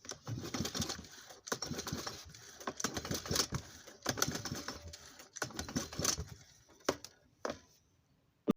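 Irregular clicks, knocks and clatter of hard objects being handled, with quieter gaps between bursts and a few sharp single knocks near the end.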